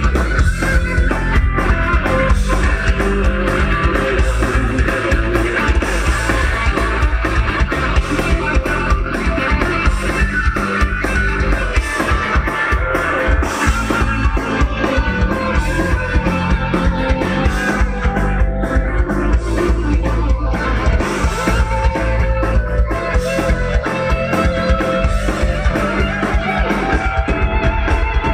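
Live heavy metal band playing loud and continuously: electric guitars, bass and drum kit, heard from the audience in front of the stage.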